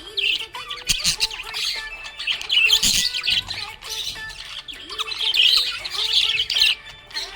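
Budgerigar chirping and warbling without a break: fast, high chattering notes with sharper squawks mixed in.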